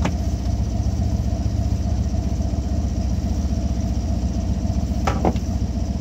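Sailboat's motor running steadily with an even low drone, with a short sharp click about five seconds in.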